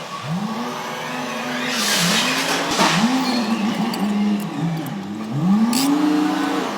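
An engine revving up and down again and again, its pitch sweeping up, holding briefly and dropping back about every second or so.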